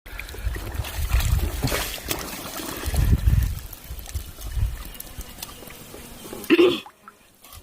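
Shallow water splashing and trickling as it is disturbed by hand, with low rumbling bumps and sharp little splashes, and a short vocal sound about six and a half seconds in.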